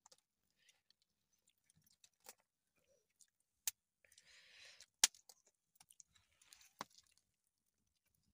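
Open wood fire crackling, with scattered small ticks and three sharp pops, the loudest about five seconds in.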